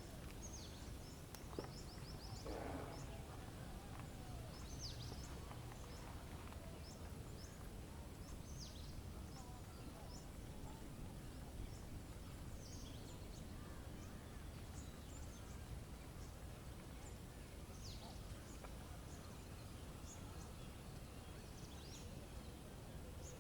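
Steady low wind noise of a snowstorm, with small birds at a feeder giving short, high call notes that fall in pitch, one every second or two.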